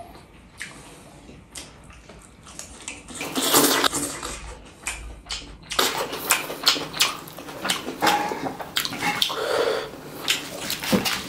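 Close-miked eating sounds: wet, squelching sounds of rice and gravy being mixed by hand in a stainless steel bowl, with chewing and many short sharp clicks.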